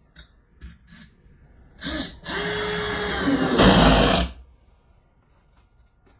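A power drill running in one burst of about two seconds, a short click just before it, getting louder for its last half second before stopping.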